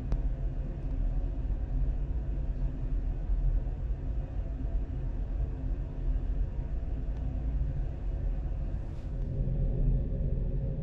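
Steady low rumble with a faint hum over it.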